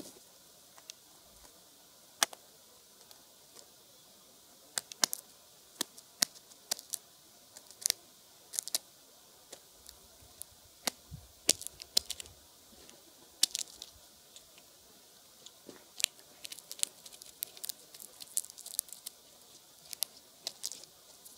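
A Clark's nutcracker working at food on the ground with its bill: irregular sharp clicks and taps of pecking and cracking, some single and some in quick runs, thickest near the end. A short flutter of wings as it lands at the start.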